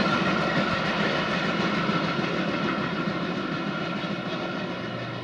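Container freight train's wagons rolling away on the rails, a steady rumble of wheels on track with a steady high tone over it, slowly fading.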